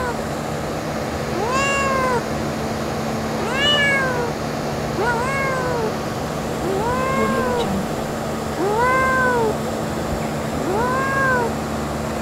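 Tabby kitten meowing repeatedly: six short calls about two seconds apart, each rising and then falling in pitch.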